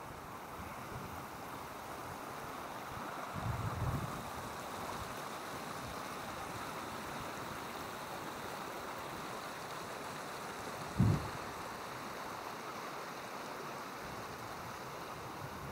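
Steady rush of running water. A few low thumps come about three and a half seconds in, and a single short, louder low thump about eleven seconds in.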